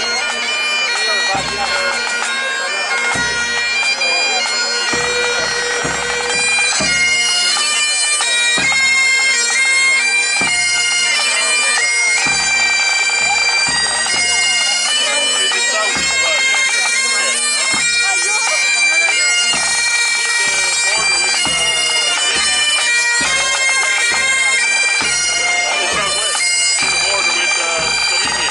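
A pipe band's Highland bagpipes playing a tune in unison over their steady drones, with occasional low thumps.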